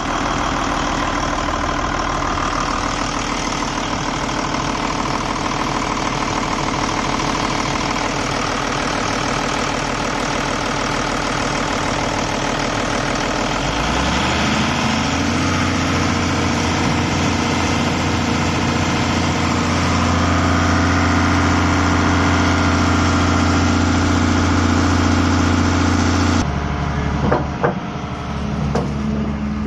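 Volvo EC210 excavator's diesel engine running steadily at low speed, then revving up about halfway through and holding at high speed. Near the end the engine drops back suddenly and a few sharp knocks follow.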